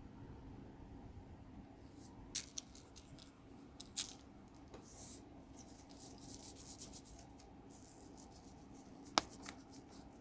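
Faint handling sounds of seasoning raw steaks on a foam meat tray: seasoning shaken from a small container and fingers rubbing it into the meat, with rustles and three sharp clicks or taps, the loudest near the end.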